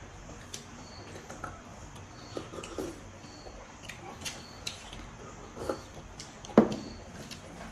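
Close-miked eating sounds of someone chewing pork meat off the bone: wet mouth sounds and scattered small clicks, with one sharp crack about six and a half seconds in.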